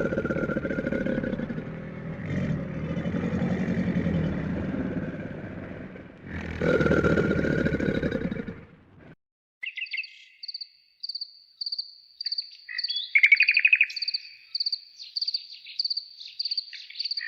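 Two long, deep animal roars over the first nine seconds. After a brief silence a small bird chirps in quick, repeated high notes.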